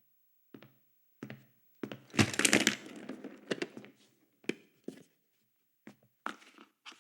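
A string of irregular knocks and thuds, with a louder crackling, crunching stretch about two seconds in.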